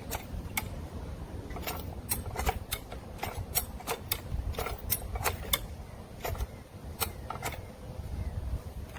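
VEVOR 48-inch high-lift farm jack being pumped by its handle: a run of sharp metallic clicks and clanks, about two or three a second, as the climbing pins step up the steel beam. The jack is under load, pulling a chained fence post out of the ground.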